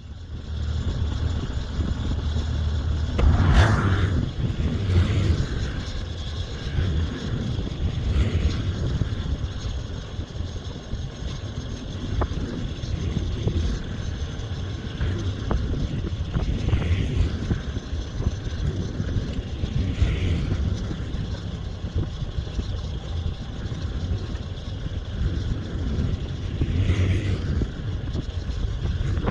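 Motor vehicle running, a steady low rumble of engine and road noise with a brief louder burst about three and a half seconds in.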